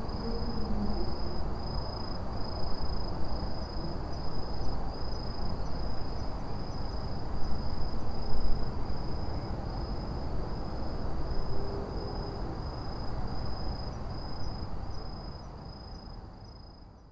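An autumn insect chirping in a high, steady trill broken into short, evenly spaced pulses, over a continuous low rumble of city traffic. Everything fades out near the end.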